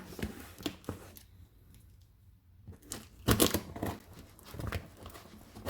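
A cardboard package being opened by hand: tearing and crinkling in short scratchy bursts, with a quiet pause of about a second and a half in the middle and the loudest bursts after it.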